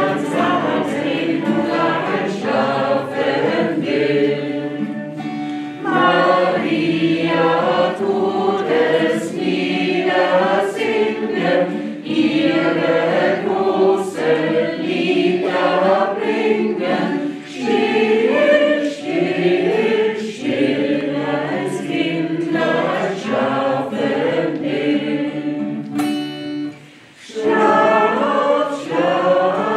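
A small group of men and women singing a song together to strummed acoustic guitar accompaniment, with a brief pause between phrases near the end.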